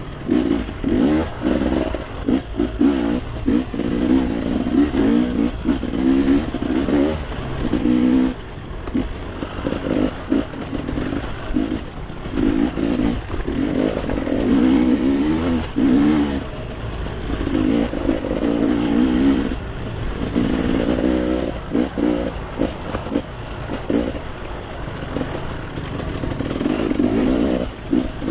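Enduro dirt bike engine revving up and falling back in short, repeated bursts of throttle while riding over loose rocks.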